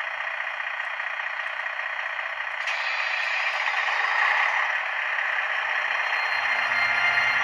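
Model locomotive sound-decoder noise from a small speaker: a steady hiss that brightens about three seconds in, joined by a low engine hum about six seconds in as the train gets under way.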